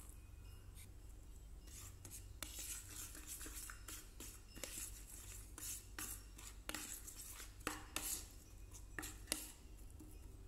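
Metal spoon stirring and scraping a wet chili-powder paste in a plastic bowl: a run of irregular clinks and scrapes that starts about two seconds in and is loudest near the end, over a low steady hum.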